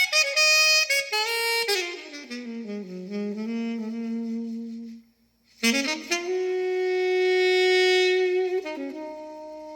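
Music with a saxophone melody in long held notes that slide down in pitch. It breaks off about five seconds in, and after a brief gap a new passage of sustained notes begins.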